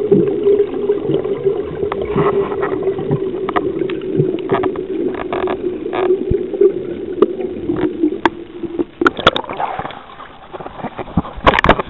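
Underwater sound: a steady low drone carried through the water, with scattered sharp clicks. About nine seconds in the drone stops as the camera breaks the surface with a splash, and water splashes again loudly near the end.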